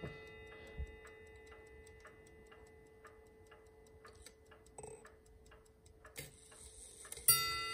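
Ship's bell clock ticking quietly, its bell tone from the last strike still ringing faintly, with a few light clicks as the minute hand is turned by hand. Near the end the bell strikes sharply: the first strike of eight bells, marking the end of a four-hour watch.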